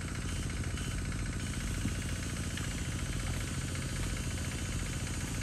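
A small engine running steadily, with a rapid, even beat and a low hum.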